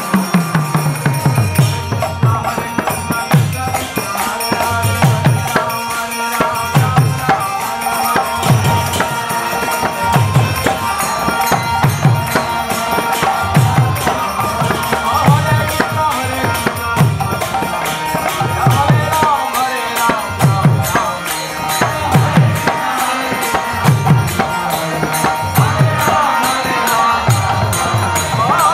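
Kirtan music: a hand drum's deep bass strokes, each sliding down in pitch, about one a second, under a fast stream of high clicks and a held melody line.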